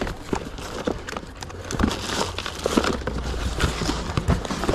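Rustling and crinkling handling noise with irregular knocks and clicks over a low rumble.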